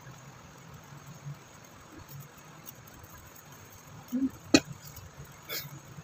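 Quiet room sound with one sharp click or knock about four and a half seconds in, followed a second later by a fainter tick.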